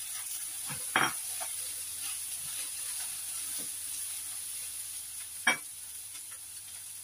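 Food sizzling in oil in a stainless steel frying pan on a gas burner while a spatula stirs it, with a steady high hiss. Two sharp knocks stand out, about a second in and again near the end.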